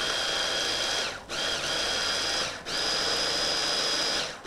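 Electric hand blender's chopper attachment running in pulses with a steady high whine, its motor pausing briefly about a second in and again around two and a half seconds, the pitch sagging and picking back up at each restart, as it grinds nuts, cocoa and honey into a flour-like paste.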